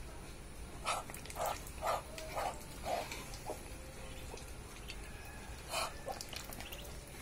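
Ducklings feeding and dabbling at a water bowl and feed pan, with a run of short animal calls about two a second over the first few seconds and one more near the end.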